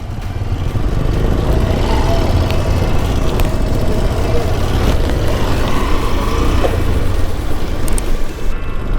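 Motorcycle on the move: a steady low rumble of wind buffeting the microphone over the running engine.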